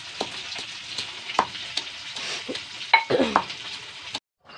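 Garlic cloves being pounded and ground with a stone pestle in a small bowl: a steady gritty scraping with sharp knocks of stone against the bowl. It cuts off suddenly near the end.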